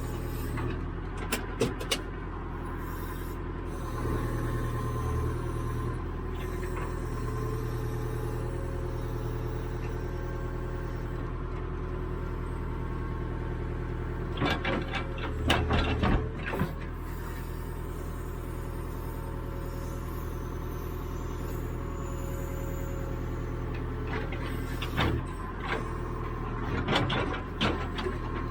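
Caterpillar 428E backhoe loader's diesel engine running steadily, with clusters of sharp clanks and knocks from the working digging gear about a second in, around the middle, and near the end.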